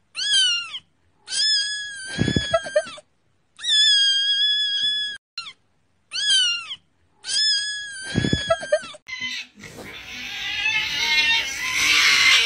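A kitten meowing: about six high-pitched meows in a row with short gaps between them, the longest lasting about a second and a half. About ten seconds in, a rising rush of noise takes over.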